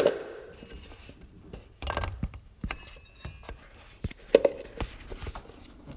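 A few scattered light clicks and knocks from handling around an open engine, the loudest right at the start and others about two and four and a half seconds in.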